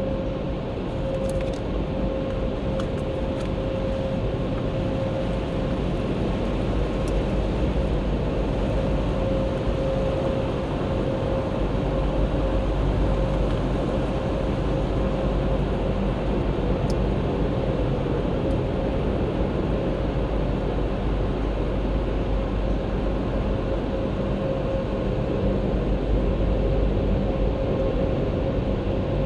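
Washtec WS240 tunnel car wash running, heard from inside the car: water spraying and streaming over the windscreen against the steady noise of the wash machinery, with a steady whine throughout. A few light ticks come in the first few seconds.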